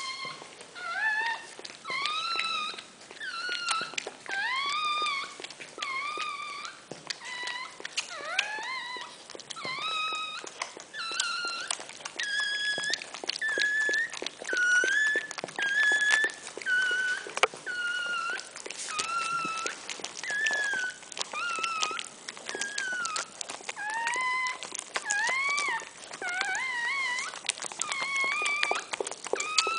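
Newborn Miniature Pinscher puppy crying: a run of high, thin squeals, about one or two a second, each rising and bending in pitch, with short clicks between them.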